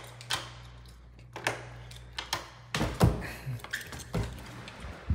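Clicks and knocks of a wooden door's brass lock and knob being worked, with a louder clunk about three seconds in as the door is pulled open by its metal handle. A low steady hum runs underneath.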